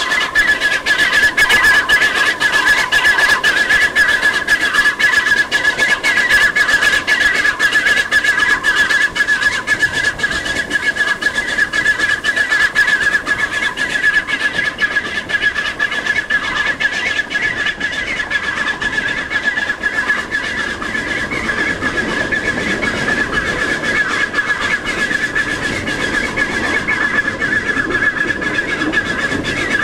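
Sardinian narrow-gauge 2-6-2T steam locomotive working hard on a steep climb, heard from the train: rapid exhaust beats over the running noise, with a steady high-pitched tone throughout. The beats fade about halfway through, leaving mostly running rumble.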